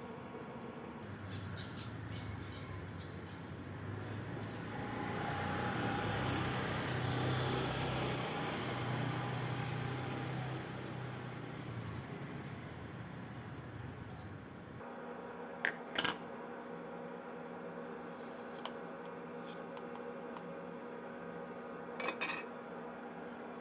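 Kitchen handling sounds over a steady low hum: a rushing noise swells and fades over several seconds, then a few short clinks.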